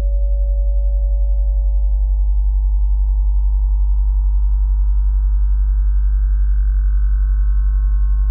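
Synthesized sine tones: a strong low hum near 43 Hz, the Sirius B orbital cycle doubled up into hearing range, pulsing fast and evenly, under a cluster of fainter higher tones that glide slowly upward.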